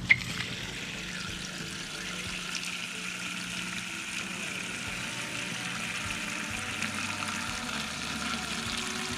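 Water from a garden hose running steadily into a tall aluminium turkey-fryer pot of crushed beeswax comb, a continuous splashing fill. A short knock comes right at the start.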